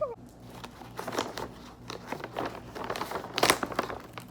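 Crinkling and small clicks of something being handled close to the microphone, with a louder crackle about three and a half seconds in, then a sudden loud knock at the very end.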